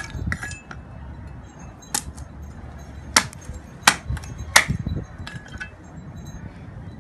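Machete blade chopping at a dry coconut's hard shell, chipping it off piece by piece: a series of sharp knocks, roughly one a second, some louder than others.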